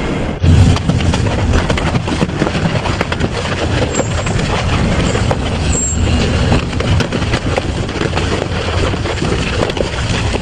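Double-shaft shredder's toothed cutters crushing and tearing scrap, a dense crunching and cracking over a low machine rumble. It gets suddenly louder about half a second in.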